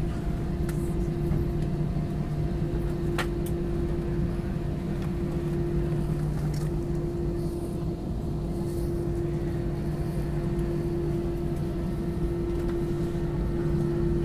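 Jet airliner cabin noise on the landing rollout, with the wing spoilers raised: a steady low rumble of engines and wheels on the runway under a constant hum. There is a single sharp click about three seconds in.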